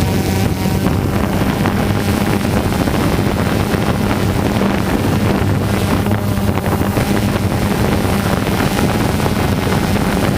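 A model's small engine running steadily with a constant hum, with wind noise on the microphone.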